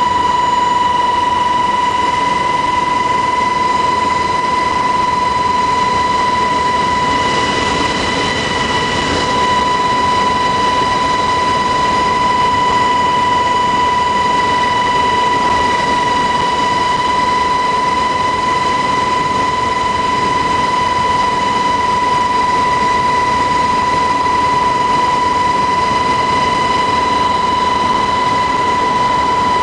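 U.S. Army UH-60 Black Hawk helicopter in flight, heard from inside the cabin: loud, steady engine and rotor noise with a constant high whine and its overtones.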